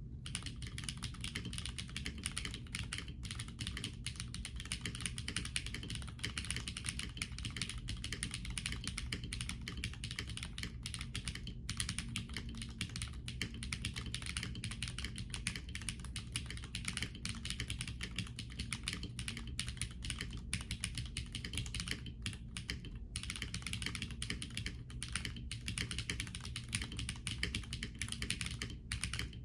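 Steady, fast typing on an Epomaker Galaxy65 mechanical keyboard: Cherry MX Black linear switch housings with metal long-pole stems, a stock FR4 plate, Cherry PBT keycaps, and no PE or PCB foam. The keystrokes run continuously, with a few brief pauses, one about a third of the way in and a couple about three quarters through.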